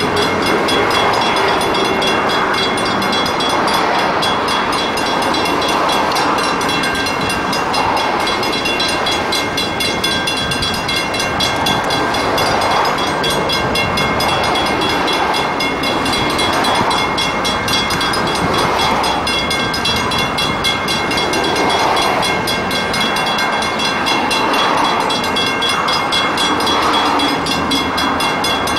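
A railway train running: a steady, continuous rumble that swells and eases every few seconds.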